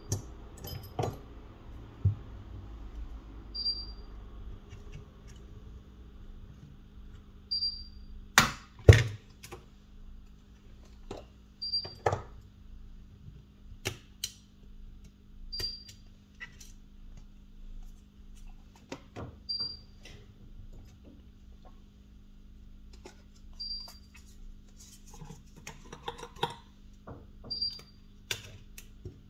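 Irregular small clicks and taps of hand tools working on a Samsung Galaxy A03s phone during disassembly, the loudest a sharp pair about eight seconds in. A short high beep repeats about every four seconds over a steady low hum.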